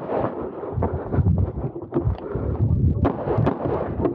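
Handgun shots fired during a practical shooting stage run: several sharp reports at uneven spacing, the clearest near the end. Wind and movement rumble on the microphone underneath.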